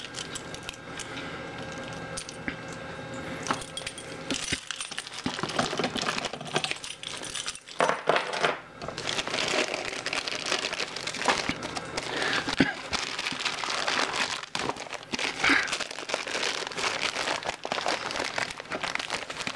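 Plastic poly mailer bag crinkling and tearing as it is cut and pulled open by hand, with irregular clicks and small metallic clinks of a pocket knife and keys on a hard counter.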